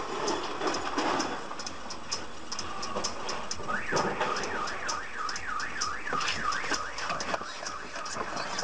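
Car alarm going off, starting about four seconds in: a siren warbling rapidly up and down, about three sweeps a second.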